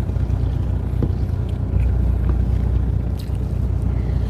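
Fishing boat's engine running with a steady low hum, with a few faint clicks over it.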